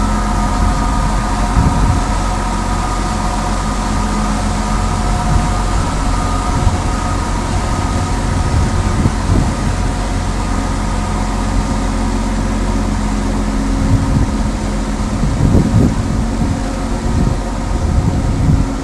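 Ship's diesel engine running steadily, a low hum with several steady tones, with some low gusts of wind on the microphone in the last few seconds.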